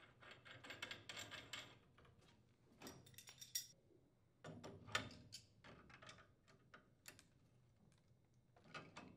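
Faint clicks and metallic taps in several short clusters as black iron gas pipes are realigned by hand and a pipe wrench is fitted to tighten the pipe union.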